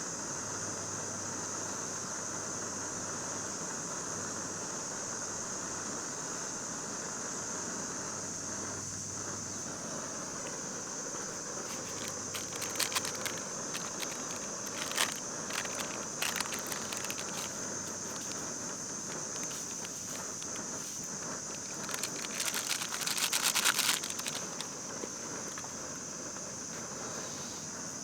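Steady high-pitched insect chorus, with scattered short rustling and clicking handling noises joining in about halfway through and a louder burst of rustling a few seconds before the end.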